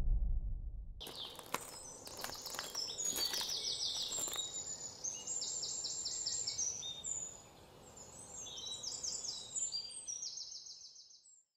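A low rumble dies away in the first second. Then comes an outdoor ambience of many high-pitched, rapid chirping trills, overlapping and starting and stopping, which fades out near the end.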